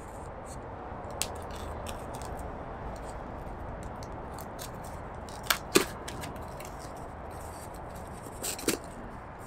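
Small pocket knife slitting the tape on a little cardboard box: a run of light scratchy ticks as the blade cuts, with a few louder sharp clicks in two quick pairs, one a little over halfway through and one near the end.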